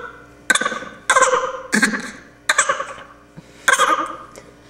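Baby vocalizing into a microphone held at its mouth: about five short, loud vocal bursts, each sliding down in pitch.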